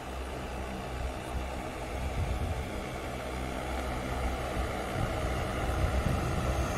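DJI Agras T30 agricultural spray drone in flight, its six rotors making a steady whirring drone that grows slightly louder toward the end.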